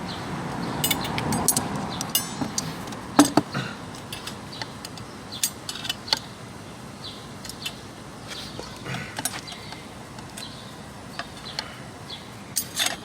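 Screwdriver prying and scraping at steel clutch plates seated tightly in an automatic transmission, with scattered metal clicks and clinks and one sharp clink about three seconds in.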